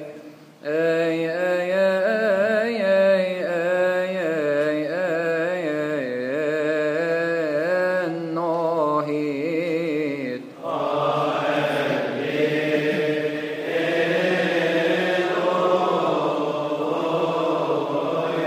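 Male cantor chanting a Coptic psalm: a long melismatic line with wavering, ornamented pitch, after a short breath at the start. About ten seconds in, the sound becomes fuller as other voices join on the same notes.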